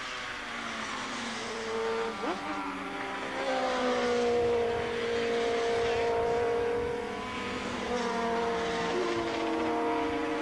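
Several racing motorcycles approaching at speed, their engine notes overlapping and growing louder, with the pitch jumping a couple of times.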